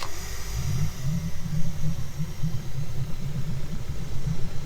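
Suzuki DF70A four-stroke outboard idling just after starting, with a low, uneven rumble. It is running rough with a consistent misfire, which the owner is pretty sure comes from bad spark plugs.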